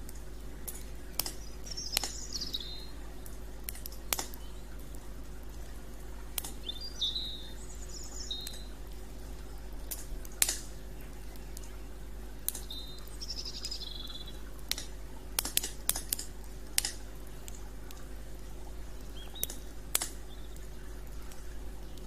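Wood campfire crackling, with irregular sharp snaps and pops from the burning sticks. A bird calls several times in short, falling chirps.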